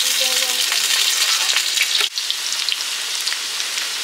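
Potatoes frying in hot oil in a kadai: a steady sizzle with a lot of fine crackling, briefly dipping about two seconds in.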